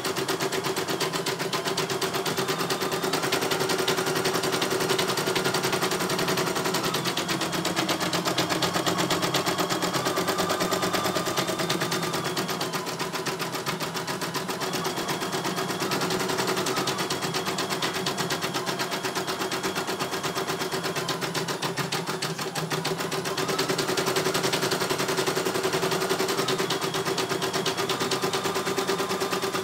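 CNY E900 computerized embroidery machine stitching: a fast, even needle clatter over a motor tone that steps up and down in pitch as the stitching speed changes. It runs a little quieter for about ten seconds in the middle.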